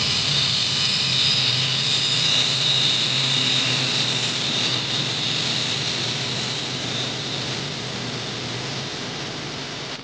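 Angle grinder with a thin disc cutting into the metal valve collar on top of an old helium tank: a steady high whine over loud grinding noise, easing off a little over the last few seconds.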